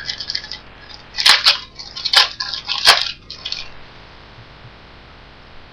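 Foil trading-card pack wrapper being torn open and crinkled: three sharp crackles about a second apart, with lighter rustling around them.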